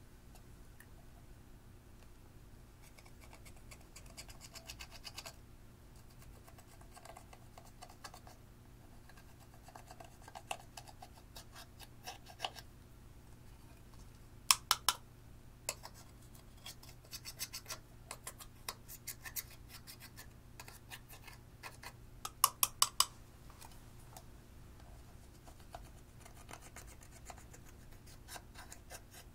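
Pressed eyeshadow being scraped and crumbled out of a plastic palette with a small metal tool, a soft scratching. Two quick runs of three or four sharp clicks, about halfway and about three-quarters through, as the plastic palette is tapped to knock the powder loose.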